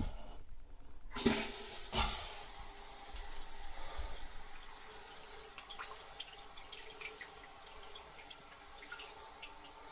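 Proficiency toilet refilling with water after its supply is turned on: a sudden rush about a second in, then a steady hissing flow with small splashes and drips.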